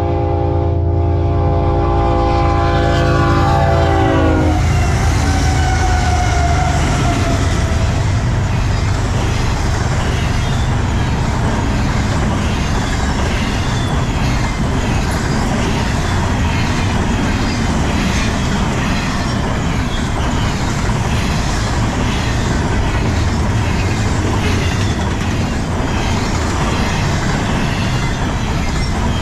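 A BNSF diesel locomotive's air horn sounds a chord for about four seconds, its pitch dropping as it cuts off. The train then keeps rolling past with a steady rumble and rhythmic clickety-clack from the wheels of the cars.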